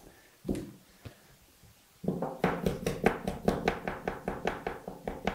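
Dough scraper chopping a block of butter on a wooden tabletop: a single knock about half a second in, then from about two seconds in a fast run of taps, about five a second.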